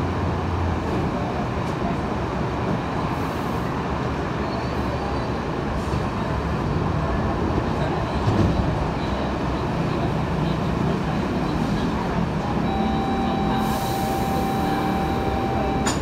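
Commuter train running, heard from inside the carriage: a steady rumble of wheels and running gear on the track. Near the end a steady high tone comes in along with a hiss.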